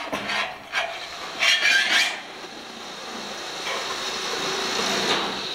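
Corrugated sheet-metal roofing panel scraping and rubbing against the steel pipe frame as it is slid into place, with a loud burst of scraping about a second and a half in.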